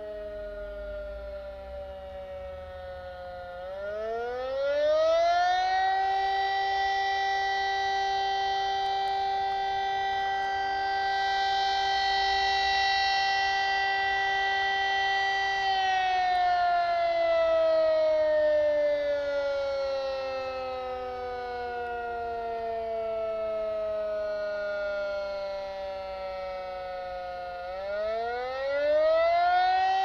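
Community fire siren sounding the fire brigade alarm that calls out the volunteer firefighters. It winds up about four seconds in, holds a steady tone for about ten seconds, then slowly falls in pitch, and winds up again near the end.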